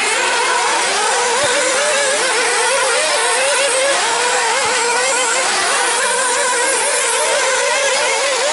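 Several 1/8-scale nitro off-road buggies racing together, their small two-stroke glow engines buzzing at high pitch and overlapping. Each engine's pitch keeps wavering up and down as the throttle opens and closes through the corners and jumps.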